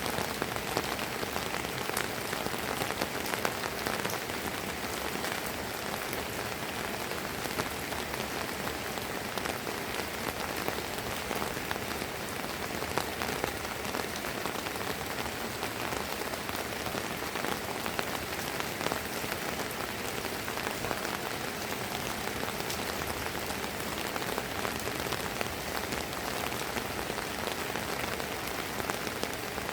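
Steady light rain falling on a terrace, a dense even patter of drops.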